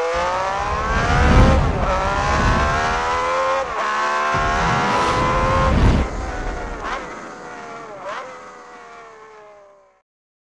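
Racing car engine at high revs, its pitch climbing and dropping sharply at several gear changes, then fading away until it stops near the end.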